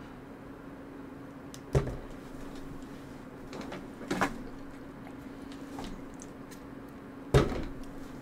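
Three sudden thumps over a steady low hum, about two seconds in, a doubled one near the middle, and the loudest near the end.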